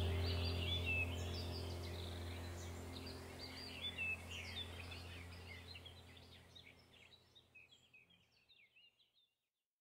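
Small birds chirping over a steady low droning hum, the whole soundtrack fading out to silence about seven seconds in.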